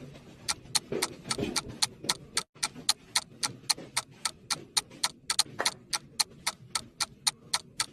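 A steady run of sharp ticking clicks, about four a second, in the manner of a clock's tick.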